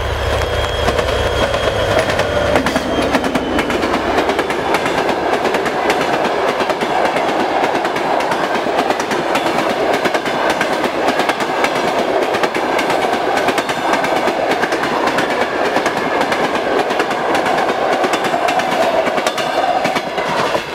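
TEP70 diesel locomotive passing close by, the low rumble of its 2A-5D49 diesel dying away in the first few seconds. It is followed by a long rake of passenger coaches rolling past at speed, wheels clattering and clicking over the rail joints.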